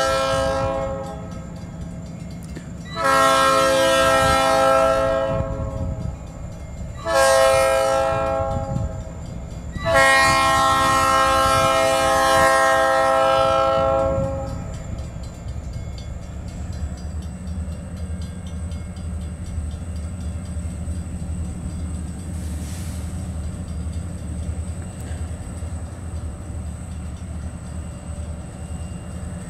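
Diesel locomotive horn blowing the grade-crossing signal: long, long, short, long, the last blast about four seconds. After the horn stops, the locomotive's diesel engine runs on with a steady low rumble as it comes through the crossing.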